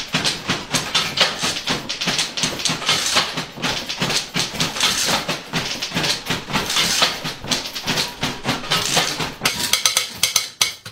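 Manual typewriters played together as percussion instruments: a dense, rhythmic clatter of keys and typebars striking.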